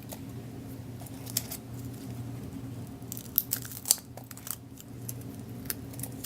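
Craft materials being handled: crinkling and rustling, with a few short sharp clicks over a steady low hum.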